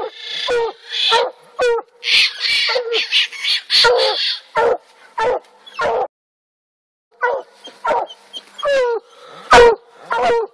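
Coonhounds tree barking: a steady run of short chop barks, about two a second, the sign that the dogs have a raccoon treed. The sound cuts out completely for about a second just past the middle, and the loudest bark comes near the end.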